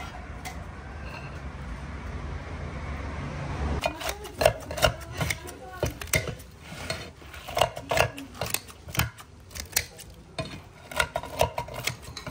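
Dishes and cutlery clinking in irregular, sharp clinks and knocks, some ringing briefly, starting about four seconds in after a steady low rumble.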